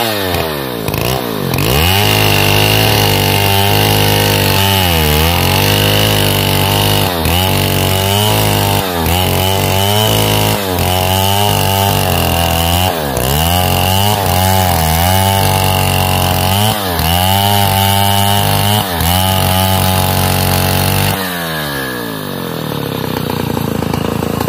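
Stihl 070 two-stroke chainsaw ripping lengthwise through a pine log at full throttle, its engine speed repeatedly dipping under the load of the cut and recovering. About 21 seconds in, the revs fall away as the cut is finished and the saw drops to a lower, steady running speed.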